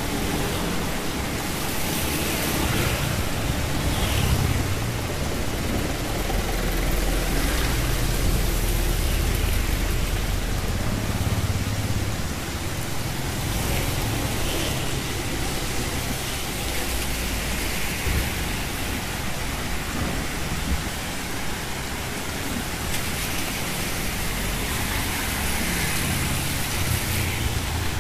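Steady rain falling on a wet street and an umbrella, with motor traffic passing: motorbike and vehicle engines rumble low, louder for several seconds about a quarter of the way in and again near the end.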